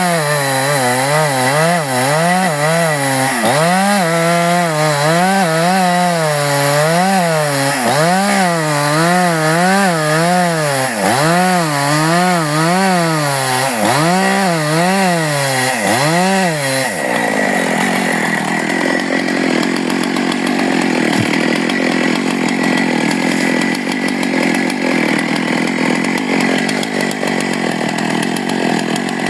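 Husqvarna 268 two-stroke chainsaw running hard while cutting eucalyptus. For the first half the engine speed swings up and down about once a second as the chain bites and frees, then the sound settles into a steadier, denser noise.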